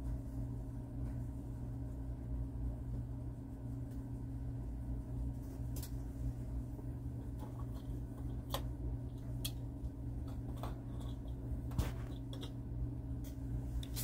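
Steady low hum of a small electric motor turning a rotating display turntable, with a few faint clicks in the second half.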